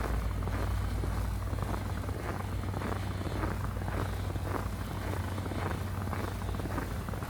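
Boots crunching through fresh snow at a steady walking pace, about one step every half second, over a constant low rumble.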